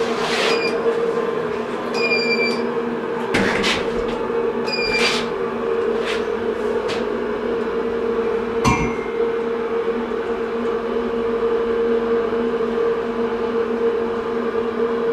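SMW elevator car travelling upward: a steady hum from the lift drive, with a series of sharp metallic clicks and clinks in the first nine seconds, some ringing briefly.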